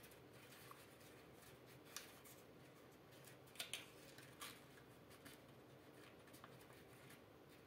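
Faint rustling and crinkling of a sheet of origami paper being folded and creased by hand, with a few short sharp crackles of the paper near the middle.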